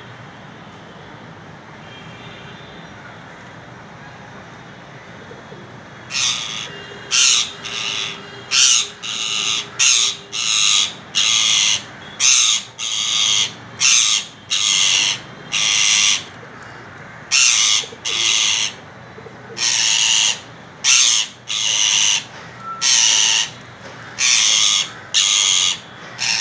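Parrot squawking: after about six seconds of steady background hum, a long series of loud, harsh, rasping calls begins, each under half a second, at roughly one a second.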